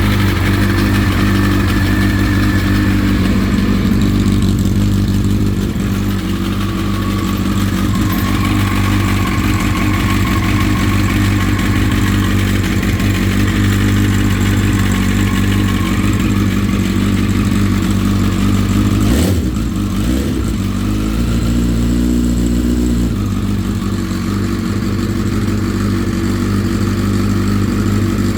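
Honda CBR1000RR SC57 inline-four engine running steadily at idle, with the start-up noise that the owner suspects comes from the cam chain tensioner. About two-thirds of the way through there is a sharp click and the engine note briefly shifts before settling back.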